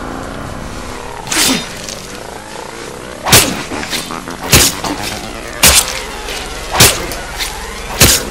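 Film sound effects of a series of heavy chopping blows, like a cleaver hacking into a body. The first blow is softer, then five sharp strikes fall about a second apart, each ringing briefly, over a low dark background drone.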